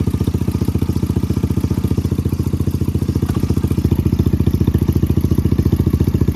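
Tata Nano's two-cylinder petrol engine idling, with a loud, rapid, even pulsing from the exhaust. The owner suspects a gap at the joint between the catalytic converter and the silencer pipe is letting exhaust out and causing the noise.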